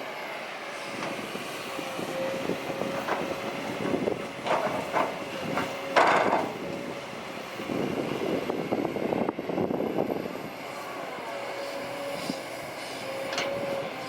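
Kobelco SK200-8 Super XM hydraulic excavator running, engine and hydraulics with a thin whine that comes and goes. Several metallic clanks and knocks come from the machine in the middle, the loudest about six seconds in.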